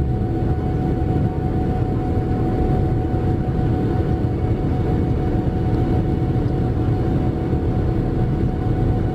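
Boeing 787-9 cabin noise during the climb after takeoff: the Rolls-Royce Trent 1000 engines at climb power make a steady, heavy rumble with a thin steady whine above it, heard from inside the cabin.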